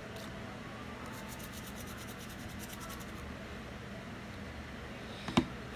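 Handling noise: faint quick scratching for a couple of seconds over a steady background hum, then one sharp knock near the end.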